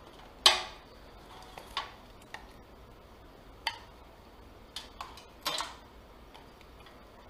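Hard plastic clicks and knocks as a USB cable is unplugged and a Western Digital My Book external hard drive and its cables are handled. The loudest, sharpest click comes about half a second in, followed by half a dozen lighter knocks spread through the rest.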